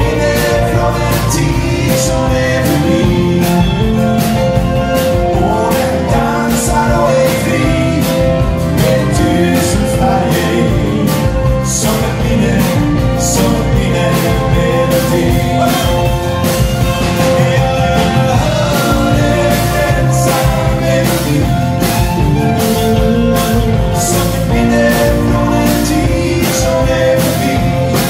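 Live band playing a song with a steady drum beat: acoustic and electric guitars, electric bass, keyboards, drums and fiddle, the fiddle bowed near the end.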